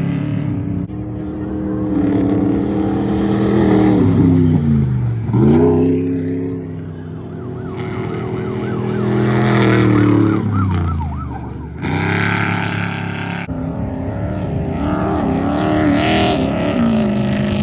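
Off-road race trucks' engines revving hard as they pass one after another, each pitch dropping sharply and climbing again, with several abrupt jumps in the sound from one pass to the next.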